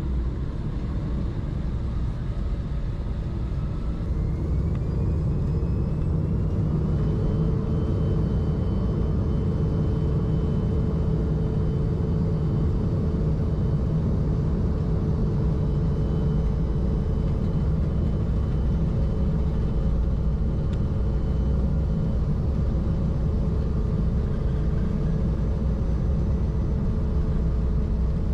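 Cabin noise of an Embraer 175's GE CF34-8E turbofan engines at takeoff: a steady low rumble, with a rising whine about four seconds in as the engines spool up to takeoff thrust, which then holds as a steady hum during the takeoff roll.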